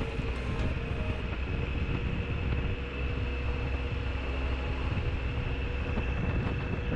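Motorcycle running steadily at cruising speed along a winding road, engine drone mixed with heavy wind rush on the microphone.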